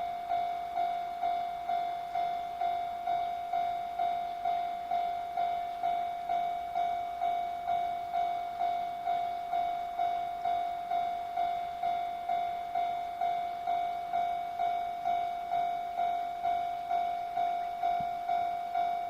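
Japanese railway level-crossing warning bell ringing its electronic 'kan-kan' tone, one clear pitch repeated about twice a second with each strike dying away. It signals that a train is approaching the crossing.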